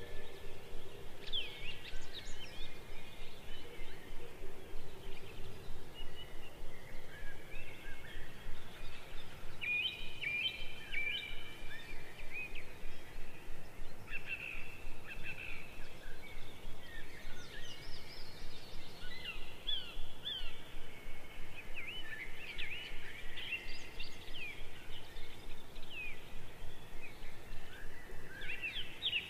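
Small birds chirping and trilling in short, varied calls throughout, over a steady background noise that pulses about three times a second.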